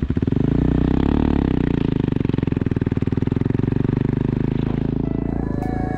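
Motorcycle engine running close by with a steady, even pulsing beat, along with road noise. Guitar music fades in near the end.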